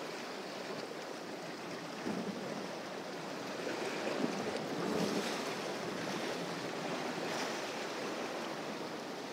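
Sea waves washing against the shore rocks, a steady rush of water that swells a little about four to five seconds in.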